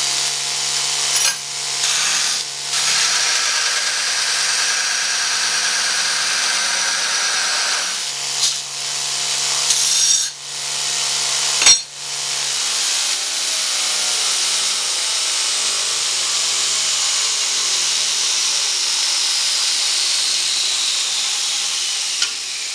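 Homebuilt 2x72-inch belt grinder grinding a piece of mild steel on an old worn belt: a steady grinding noise over the electric motor's hum, broken by a few brief lifts of the steel. About halfway through there is a click as the motor is switched off, and the belt and wheels coast down with a slowly falling whine.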